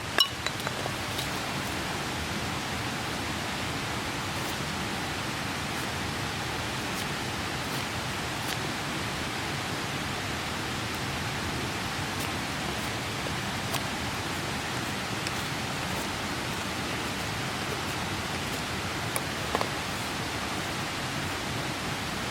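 A mountain stream rushing with a steady, even sound. There are a few small sharp clicks right at the start and one about twenty seconds in.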